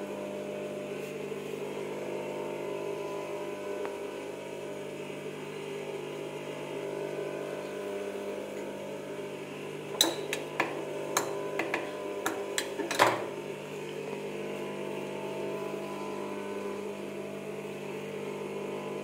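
Steady electric hum of an industrial sewing machine's motor running while the machine is not stitching. About halfway through comes a short cluster of sharp clicks and taps as the fabric and lace trim are handled at the machine.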